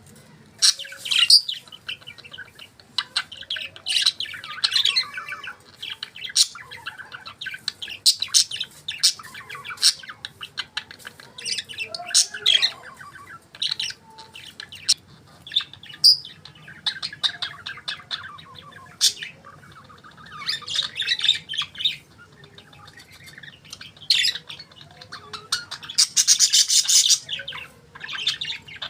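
Budgerigars chirping and warbling in a run of short, irregular high chirps, with a denser burst of chatter near the end.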